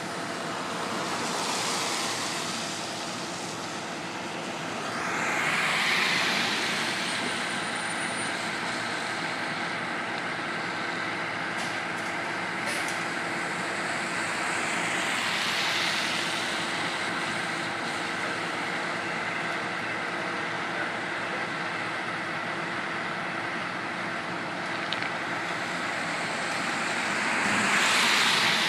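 Cars passing on a wet road, their tyres hissing as each swells and fades; four go by, the last and loudest near the end. Underneath is a steady engine hum.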